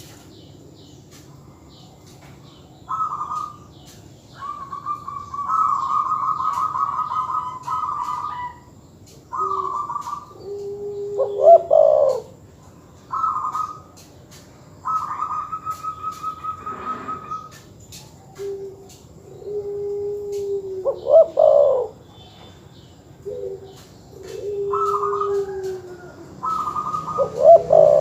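Doves cooing, spotted dove and zebra dove: repeated calling phrases every few seconds. Higher, rapidly stuttering coos alternate with lower, mellower coos that end in short rising notes.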